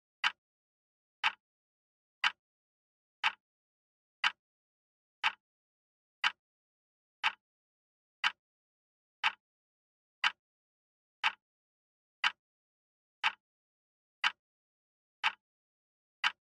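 Countdown timer tick sound effect: one short, sharp tick every second, evenly spaced, with silence between, counting off the seconds left to answer.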